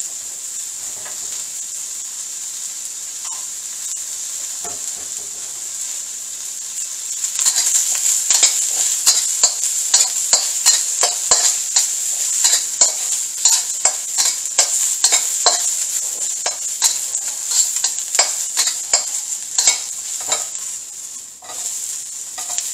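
Onions, garlic and red chilies sizzling in hot oil in a steel wok: a steady hiss. From about seven seconds in until shortly before the end, a metal spatula scrapes and clacks against the wok in quick strokes.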